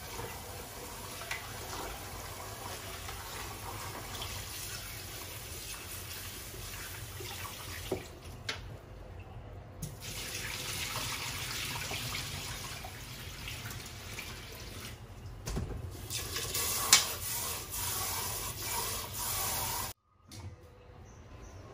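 Tap water running and splashing into a kitchen sink, the flow easing off briefly twice and cutting off sharply near the end.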